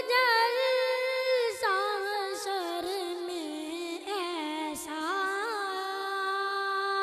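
A boy singing a naat, an Urdu devotional poem in praise of the Prophet, solo and unaccompanied. His voice holds long notes and decorates them with melismatic turns.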